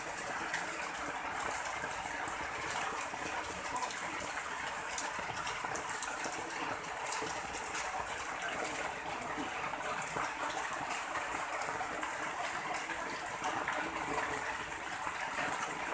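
Steady rushing hiss of rain falling, with a fine crackle on top.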